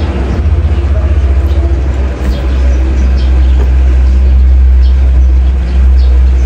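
Loud, deep, steady rumble that throbs rapidly for about the first two seconds and then runs even, with a few faint ticks above it.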